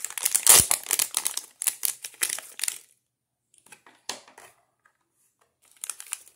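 A small plastic parts bag crinkles and rustles as a one-channel relay module is pulled out of it, with a soft thump about half a second in. The crinkling stops about three seconds in, and a few light handling clicks follow.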